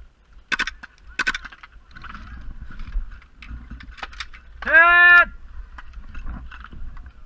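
Two sharp cracks about half a second apart, typical of gas blowback airsoft pistol shots. About four seconds in comes the loudest sound: a brief, strongly pitched honk-like call lasting about half a second.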